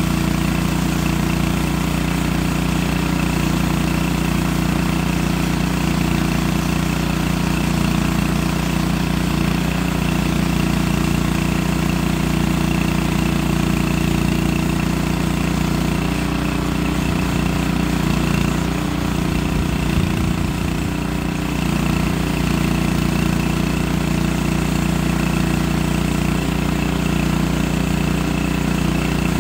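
Portable band sawmill's small gas engine running steadily under load as the band blade is pushed through a log.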